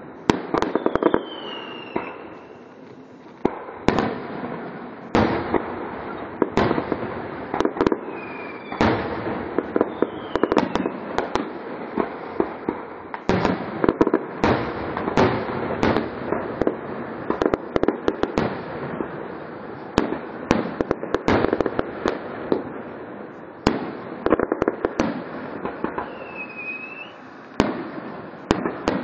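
Aerial fireworks shells bursting in quick succession, a dense run of bangs and crackling, with a few short high whistles falling in pitch.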